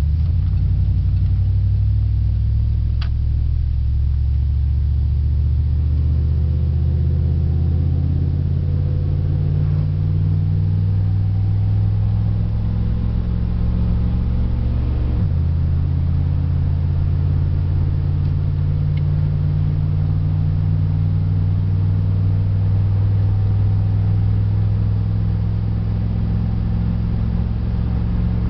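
A 1995 Dodge Dakota's 318 V8, running on wood gas, pulling the pickup along the road, heard from inside the cab. The engine note climbs steadily, drops suddenly about halfway through, then climbs again.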